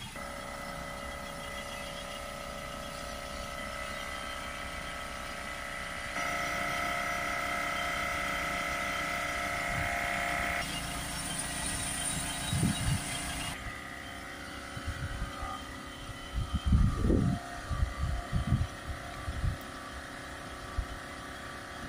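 Ford Transit diesel engine idling steadily while DPF cleaning fluid is sprayed into its soot-blocked particulate filter, with a hiss of compressed air from the spray gun for a few seconds near the middle. In the second half come irregular low thumps and puffs.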